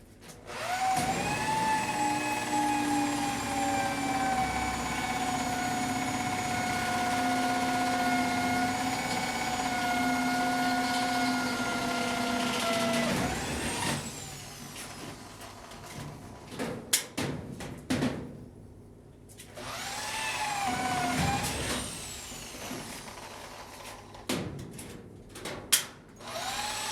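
Electric drill boring holes: the motor whines for about twelve seconds, its pitch sagging slowly under load, then stops suddenly. Knocks follow, then two shorter bursts of drilling near the end.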